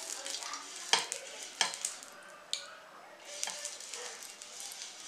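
Silicone basting brush spreading oil over a hot nonstick pan: soft brushing and scraping strokes with a light hiss, and a few sharp taps in the first few seconds.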